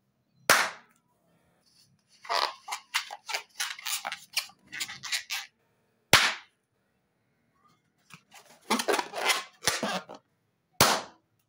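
Three small latex balloons burst one after another as they are pricked with a pin, each a single sharp pop: about half a second in, just past the middle, and near the end. Between the pops, the rubber is handled in the fingers with quieter rubbing and squeaking.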